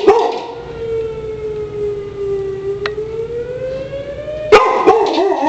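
Severe-weather warning siren sounding during its test: one long, smooth wail that dips slightly and then rises over about four seconds. A dog barks at the very start.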